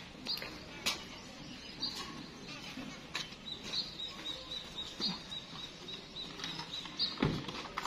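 A pigeon being chased on foot into its coop: scattered sharp clicks and scuffling with wing flaps, a run of short high chirps at about four a second in the middle, and a heavy thump near the end.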